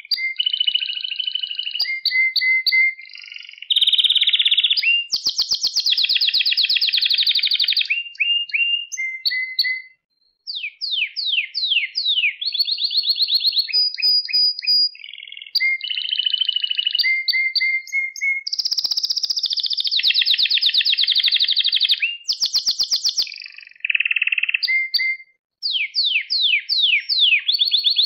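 Male domestic canary singing a long, loud song of rapid trills and rows of quick sweeping notes, with a brief pause about ten seconds in.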